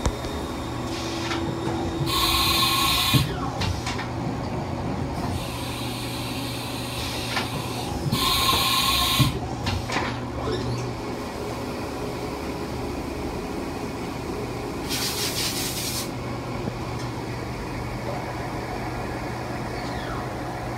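Haas VF-2 vertical machining center with a steady low hum. Three loud bursts of hissing, each about a second long, come about 2, 8 and 15 seconds in, with a fainter, longer hiss between the first two.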